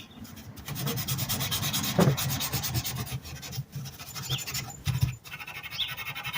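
Rapid scrubbing strokes of a brush worked by hand over a rusty metal toolbox latch, a steady rubbing, rasping scrape as the rust is cleaned off.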